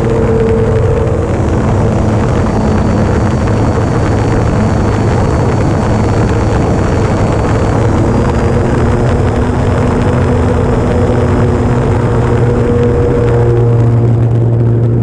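Electric motor and propeller of a large radio-controlled Draco model plane in flight: a steady whine that shifts pitch slightly about halfway through and again near the end, over a loud rushing noise.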